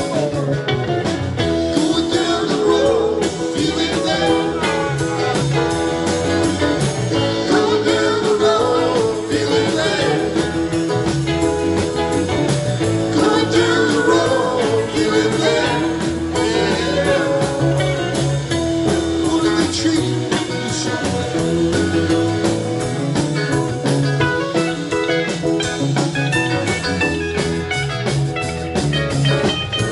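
Live rock band playing a blues-rock song, with electric guitars, bass, drums and keyboard and a woman singing.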